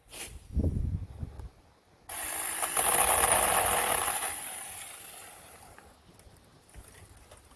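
A few dull knocks, then a cordless chainsaw starts suddenly about two seconds in and runs with a loud, hissing whir, fading away over the next few seconds.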